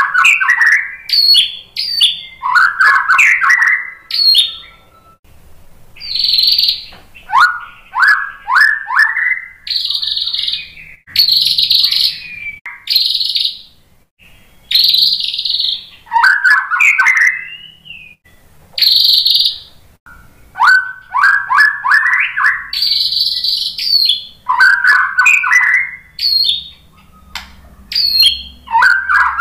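White-rumped shama (murai batu) singing in a cage: loud, varied phrases of quick rising whistled notes, high ringing notes and sharp clicks, each a second or two long, with short pauses between phrases.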